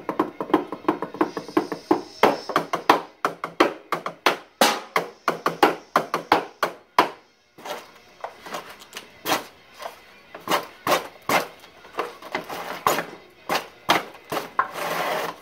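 Drumsticks beating fast rhythms on a bucket and other improvised drums. The playing stops briefly about seven seconds in, then resumes with sparser hits and a short rattling roll near the end.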